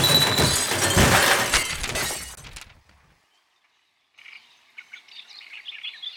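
Cartoon crash of a wooden bench smashing to pieces: a loud clatter of breaking wood that dies away over about two and a half seconds. After a brief silence, birds start chirping.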